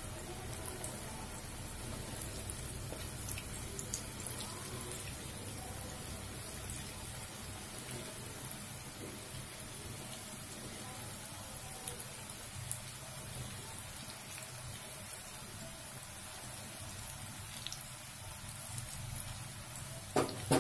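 Spinach pakoras deep-frying in hot oil in a kadhai, a steady crackling sizzle. A couple of short louder knocks come near the end.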